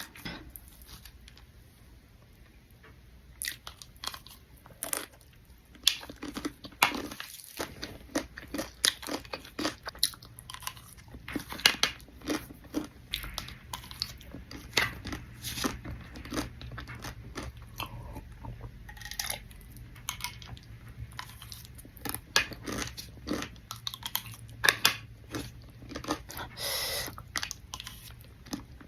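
Close-miked crunching and chewing of chatpata, a crunchy snack, with many sharp, irregular crunches as it is bitten and chewed.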